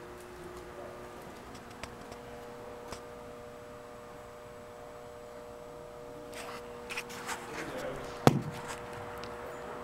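A steady low hum with a few light clicks. From about six seconds in come rustling and knocking, with one sharp knock a little after eight seconds.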